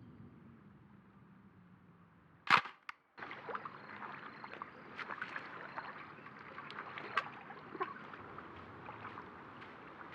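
A snapshot film camera's shutter firing with one sharp click about two and a half seconds in, followed by a fainter click, then low outdoor background noise.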